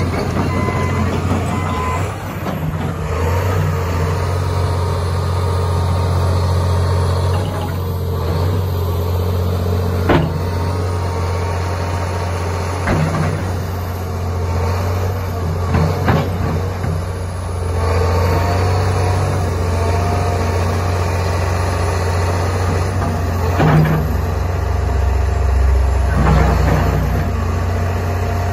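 John Deere 350D LC excavator's diesel engine running steadily under hydraulic load as the boom and bucket are worked, with a few sharp clanks scattered through.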